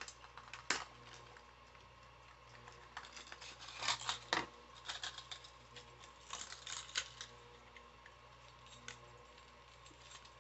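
Plastic lure packaging being handled and opened: irregular clicks and crackles, busiest around four seconds in and again around six to seven seconds in.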